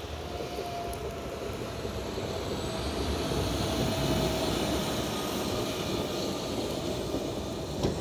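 A motor vehicle running close by on a snowy road: a steady rumbling noise with a faint steady whine through it.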